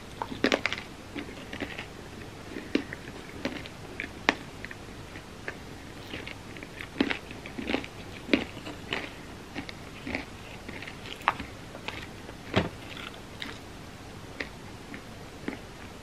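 A person eating a soft, sticky chocolate banana nicecream sundae: irregular wet chewing and mouth smacks with scattered sharp clicks, thinning out after about twelve seconds.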